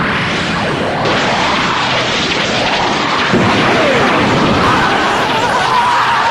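Cartoonish energy-beam blast sound effect: a loud, continuous rushing blast of noise like a jet or explosion, with a wavering whistle-like tone coming in near the end.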